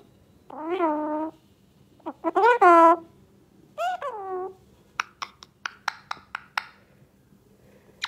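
Alexandrine parakeet vocalising: three drawn-out calls that rise and fall in pitch, then a quick run of about eight short, sharp clicks.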